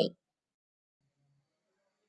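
Near silence: a pause in a woman's narration, with the tail of her last word at the very start.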